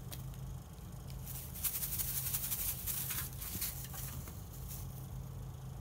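Crinkly rustling and rattling of a homemade string cat toy with plastic wrap as it is swung and batted, in a cluster of quick scratchy bursts from about one to three and a half seconds in, with a few fainter ones later.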